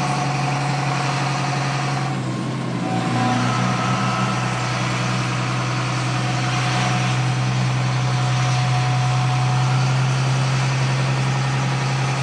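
Vehicle engine running steadily: a constant low drone with a few faint steady higher tones above it.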